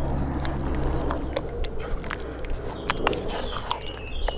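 Wooden spoon stirring thick bean stew in a cast-iron Dutch oven: wet squelching with scattered clicks and knocks of the spoon against the pot.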